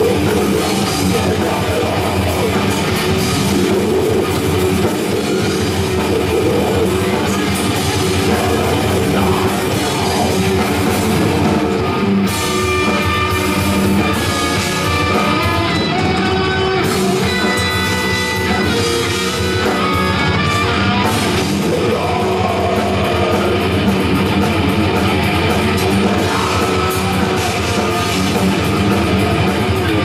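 Rock band playing live, electric guitar and drum kit at a loud, steady level, recorded from the audience in a club.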